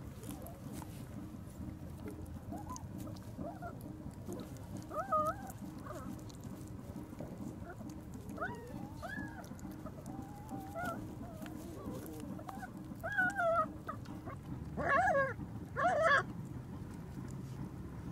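White puppies whimpering: short, high, wavering whines come a handful of times, the two loudest close together near the end. A steady low rumble runs beneath them.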